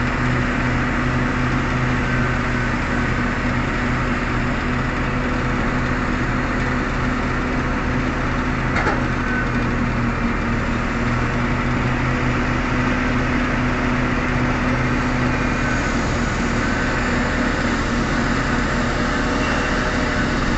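Heavy diesel engines of a large hydraulic excavator and a Caterpillar 777D haul truck running steadily during loading, a continuous low drone. A brief knock about nine seconds in.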